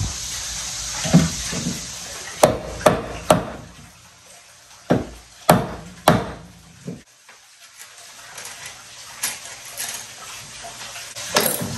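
Hammer blows driving a plywood-and-aluminium jack plate down onto a jon boat's transom, the plate being a tight fit: about eight sharp knocks with short pauses in the first seven seconds, then lighter knocks and clinks near the end.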